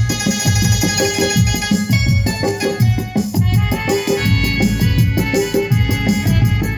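Instrumental interlude of a Hindi film-style song: an electronic keyboard plays the melody in organ-like held notes over a steady drum beat.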